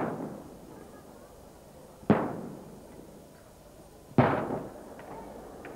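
Traditional Maltese aerial firework shells bursting. There are two sharp bangs about two seconds apart, each trailing off in a rolling echo, with the echo of an earlier bang fading at the start.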